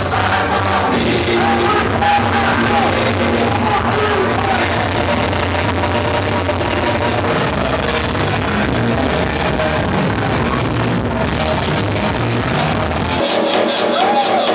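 Loud club dance music track; about 13 seconds in the bass drops out abruptly, leaving the higher parts playing.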